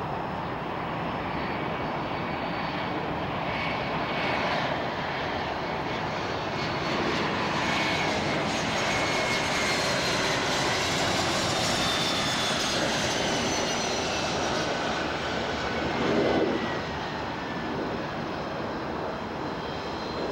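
Bombardier Challenger twin-turbofan business jet on final approach and landing, its engine roar building as it passes. A high turbine whine falls in pitch as it goes by, and the sound is loudest briefly about three quarters of the way through.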